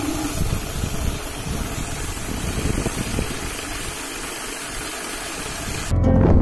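Belt-driven piston spray pump and its electric motor running steadily, a dense mechanical noise with a low rumble. Music cuts in near the end.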